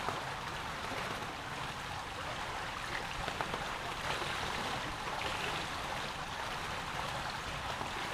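Steady rushing and lapping of swimming-pool water, with faint small splashes from swimmers moving through it.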